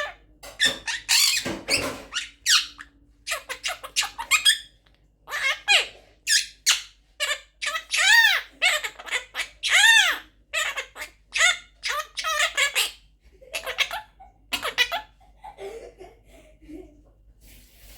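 Quaker parrot (monk parakeet) giving a long run of short, squeaky, high-pitched calls and chatter, a few of them clear calls that rise and fall in pitch about halfway through.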